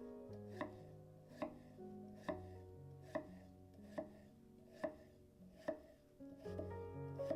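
Kitchen knife chopping on a cutting board in steady, evenly spaced cuts, a little more than one a second, over soft background music.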